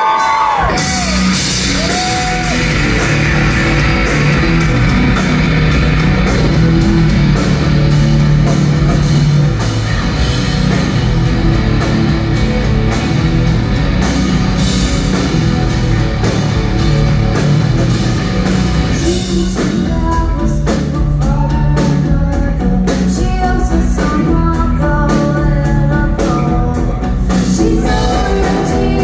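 Rock band playing live at full volume: electric guitars, bass and drums. About two-thirds in, the band drops back and a woman's singing voice comes in over it.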